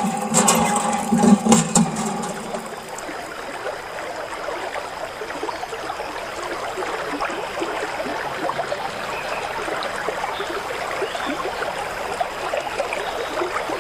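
A thin stream of water from a miniature toy hand pump trickles steadily into a small foil dish. It follows a steady hum with a few clicks in the first two seconds.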